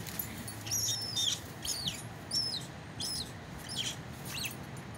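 Squirrel, seized by a dog, giving a string of high-pitched distress squeals, about six short cries, some falling in pitch.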